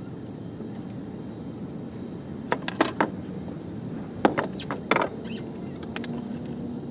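Small wooden stand being knocked into place against the wooden frame of the prop: two short bunches of sharp wooden knocks and clatters, the first about two and a half seconds in and the second about four seconds in.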